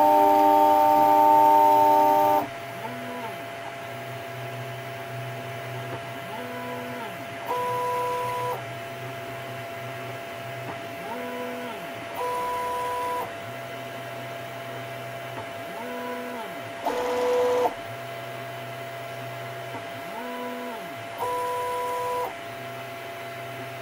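3D printer stepper motors whining through an auto bed-leveling routine: a loud multi-tone move at the start, then a cycle repeating every four to five seconds of short whines that rise and fall in pitch followed by about a second of steady whine as the head moves between probe points. A constant hum runs underneath, and about two-thirds of the way through there is one short, harsher buzz.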